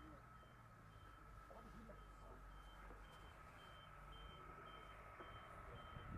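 Faint reversing beeper of a vehicle backing up: a short high beep repeating about twice a second over a steady faint hum.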